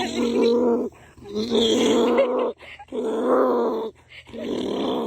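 Farm animals' loud, drawn-out calls, four in a row, each about a second long and held at a steady pitch.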